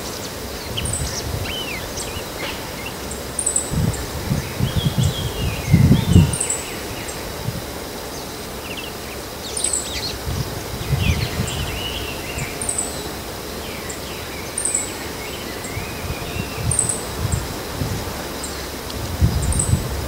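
Male bull-headed shrike singing its quiet autumn subsong (guzeri): soft, rambling warbled phrases of varied notes, coming and going in short runs. Low gusty rumbles of wind on the microphone are the loudest sound, strongest a few seconds in.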